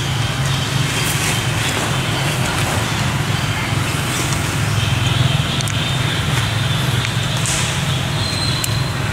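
Steady low mechanical hum with an even hiss over it, like a running motor, and a few faint ticks.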